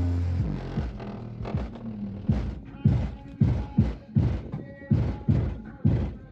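Car sound system playing bass-heavy music through its subwoofers: a run of heavy bass hits, about two a second, each dropping in pitch. The bass is distorted by the phone microphone overloading.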